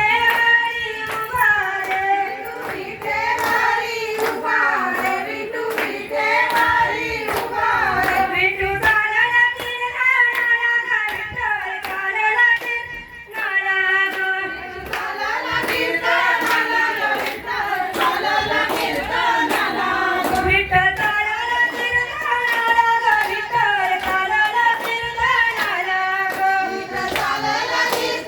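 A traditional Marathi Ganpati devotional song sung by a woman, with hand claps keeping a steady beat throughout.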